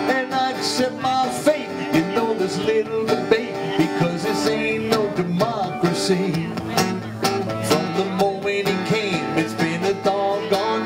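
Acoustic guitar strummed steadily with a man singing a country-style song into a microphone.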